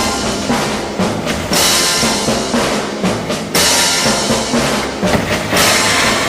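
Music with a drum kit beat and bass drum, with a cymbal-like crash about every two seconds.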